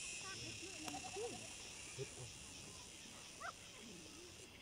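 Steady high-pitched chorus of insects, with faint scattered low calls underneath.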